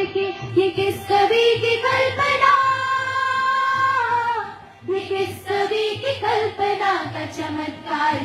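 A song sung by young female voices over musical accompaniment with a beat, with one long held note around the middle.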